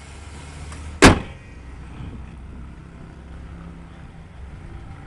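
The hood of a 2005 Chevrolet Silverado pickup slammed shut about a second in, one loud bang, followed by a low steady hum.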